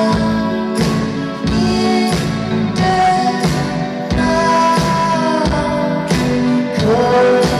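Live dream-pop band playing, with held keyboard chords over drum hits.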